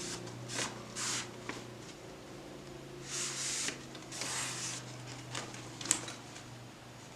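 Parts of a four-tier portable rack, its metal rods among them, being handled and fitted together: several short rustling, scraping sounds and a sharp click about six seconds in.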